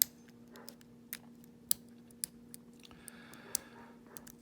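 A pick and tension wrench working in the keyway of a Master Lock M530 padlock, making scattered sharp metallic clicks at irregular intervals, about half a dozen loud ones, over a steady low hum.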